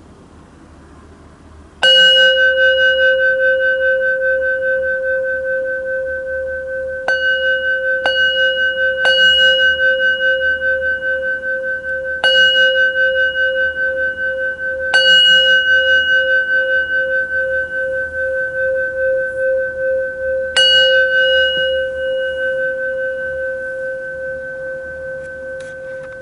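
Japanese Buddhist rin bowl bell struck seven times with a white-covered striker, the first strike about two seconds in and the rest at uneven intervals. Each strike rings on in a long, wavering tone of the same few pitches, slowly fading near the end.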